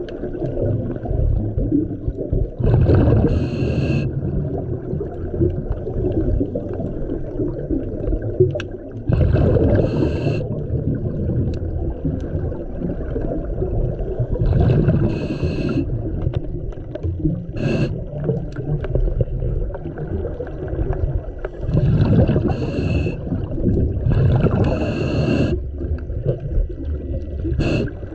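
Scuba breathing heard underwater through a camera housing: continuous rumbling bubble noise with a hissing breath from the regulator every few seconds.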